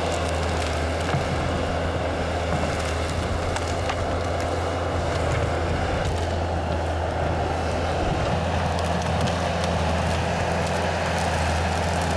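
Bobcat skid-steer loader's diesel engine running steadily under load as it pushes into a brush pile, with branches cracking now and then.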